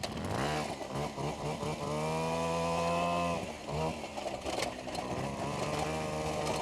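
Vintage Piaggio Ciao moped's small two-stroke engine revving up under load on a dirt climb. It holds a steady high note, dips briefly about three and a half seconds in, then runs steadily again.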